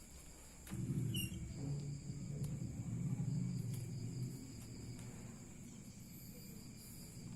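Steady high-pitched insect chirring in the background, with a low rough rumbling sound that starts about a second in, is loudest for the next few seconds and then eases off.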